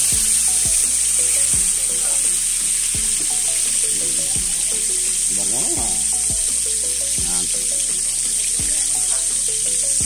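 Chopped garlic and onion sizzling in hot cooking oil in a kawali (wok-style frying pan), a steady frying hiss as the aromatics are sautéed.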